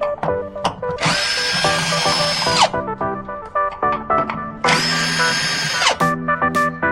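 Power drill running in two bursts of about a second and a half each, with a steady high whine that winds up at the start of each burst and winds down at the end, over background music.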